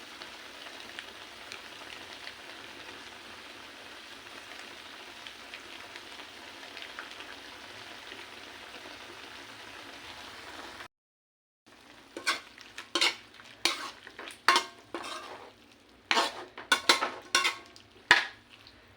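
Pork strips sizzling in a pan of soy sauce and oyster sauce, a steady hiss. After a brief cut, a utensil knocks and scrapes repeatedly against the pan as the meat is stirred.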